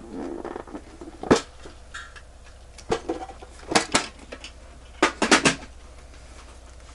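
Small hard objects clicking and clattering as they are picked up and set down on a work surface, with a brief rustle at the start. The loudest click comes about a second in, and a quick run of four clicks comes about five seconds in.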